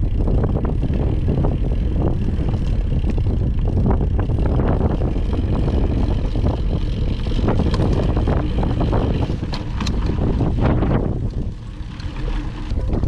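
Mountain bike riding over a rough trail: a steady low rumble from wind on the microphone, with frequent clattering knocks and rattles from the bike, easing briefly near the end.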